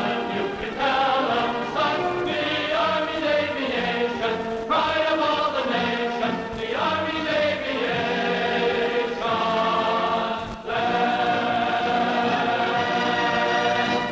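Choral music: a choir singing long held chords that change every second or two, with a brief break about ten and a half seconds in.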